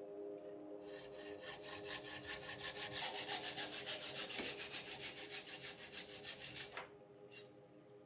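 Hacksaw cutting a bicycle fork's steerer tube clamped in a vise: a fast, even run of rasping strokes that starts about a second in and stops abruptly near the end, with soft sustained music tones underneath.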